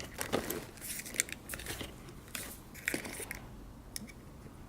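Scattered light clicks and rustles of steering-wheel parts being handled and fitted together by hand, thinning out toward the end.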